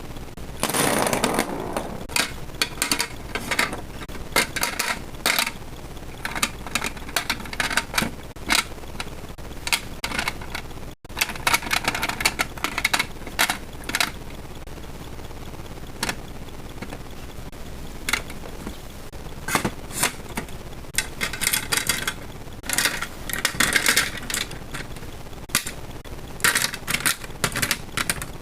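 Irregular rustling and light clicking of small items being handled and sorted in a drawer, with a brief break about eleven seconds in.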